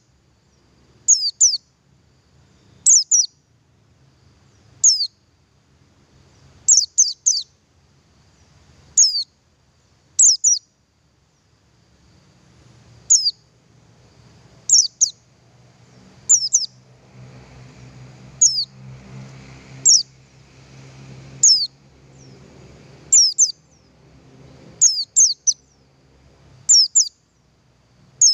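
Male buxtoni white-eye (pleci buxtoni) giving its call: short, thin, high notes that drop in pitch, repeated about every two seconds and often doubled or tripled.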